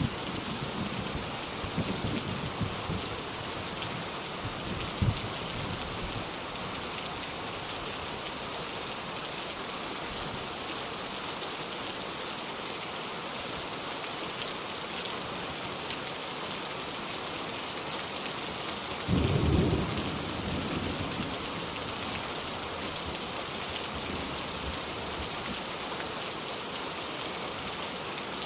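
Steady rain falling, with thunder rumbling low in the background: faint rumbles in the first few seconds and a louder, short rumble about two-thirds of the way through.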